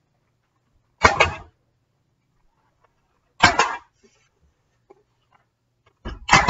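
Brad nailer firing three times, a few seconds apart, driving 18-gauge brad nails through door casing into the door jamb.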